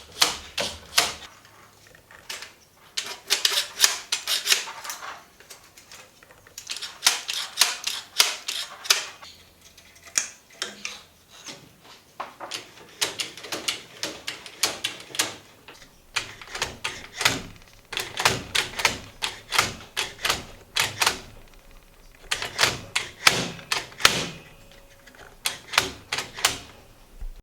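Rapid, clattering clicks in bursts of a second or two with short pauses between: the balls and swinging aluminium flaps of a homemade magnet machine knocking as it runs.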